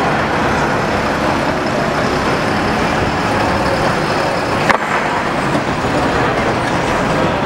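Engine of a 1937 Leyland TD5 double-deck bus running as the bus pulls slowly forward, with a single sharp knock about halfway through.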